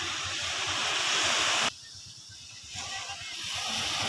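Surf washing onto a sandy beach: a steady hiss of small breaking waves that swells and then cuts off abruptly under halfway through. It builds back up again about a second later.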